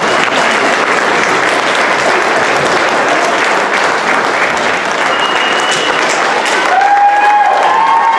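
A crowd applauding: steady, dense clapping, with a few voices calling out over it near the end.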